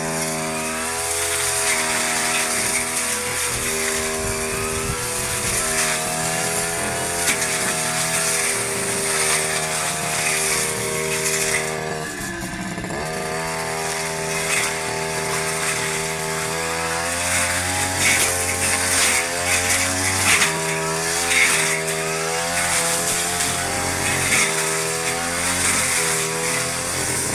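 Two-stroke lawn mower engine running at high revs while cutting thick grass, its pitch wavering up and down with the load and sagging briefly about halfway through before picking up again.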